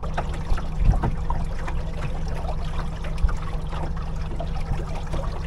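Small boat motor running steadily, with water splashing and trickling along the hull.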